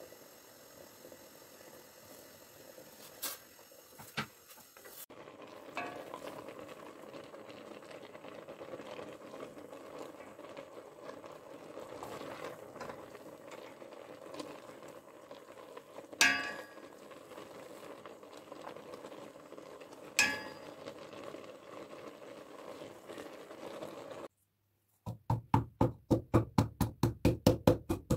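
Spaghetti being stirred with a wooden spoon in a stainless steel pot over a steady background noise, with two sharp clinks against the pot. Near the end, after a brief silence, a wooden mortar and pestle pounds in a fast even run of knocks.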